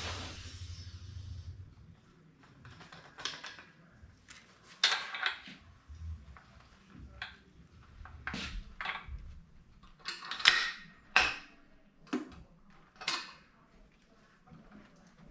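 Compressed air hissing out of the air hose, dying away in the first second and a half, followed by a dozen or so scattered light metallic clinks and knocks.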